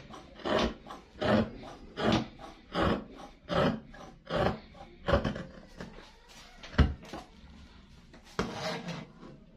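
Tailor's shears cutting through djellaba fabric on a table, one crisp snip about every three-quarters of a second. The cutting stops about six seconds in, followed by a single sharp click and a hand rubbing across the cloth near the end.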